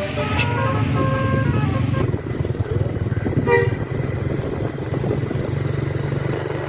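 Tour bus idling with a steady low engine hum, while its musical telolet air horn plays a short run of stepped notes over the first two seconds; a brief tone sounds about three and a half seconds in.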